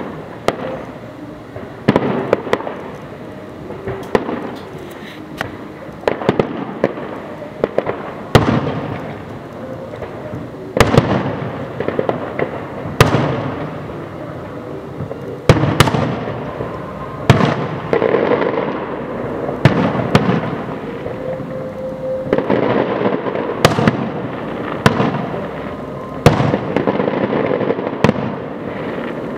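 Fireworks display: aerial shells bursting in loud, sharp bangs, one every second or two, each trailing off in an echo, over a continuous din of smaller bursts.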